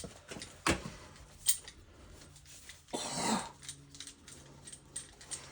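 Wrenches being handled and fitted on a gas valve's pipe fittings: a couple of sharp metallic clicks in the first second and a half, then a longer rasping noise about three seconds in, over a faint low hum.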